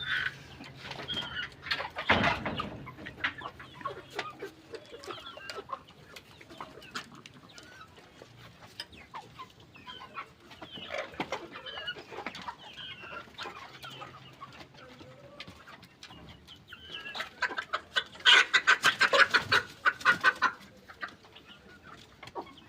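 Chickens clucking and calling among themselves, many short calls overlapping, with a loud run of rapid calls about three-quarters of the way through.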